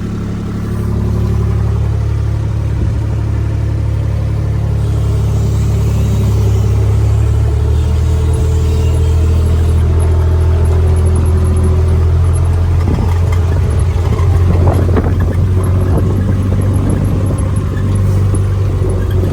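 Kubota tractor engine running steadily under way through a paddock, its note shifting partway through, with a few brief knocks and clatters about two thirds of the way in.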